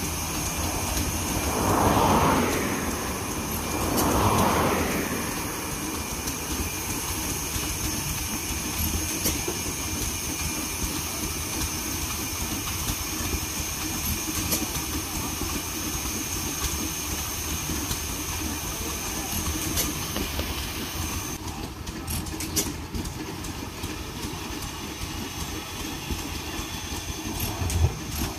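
300 hp Corliss stationary steam engine running, a steady rhythmic mechanical chugging with a constant hiss of steam. Two louder whooshes of steam about two and four and a half seconds in.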